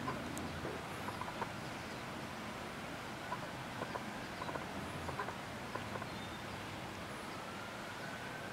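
A duck making short, soft clucking calls, scattered over a steady background hiss, with a few faint high chirps.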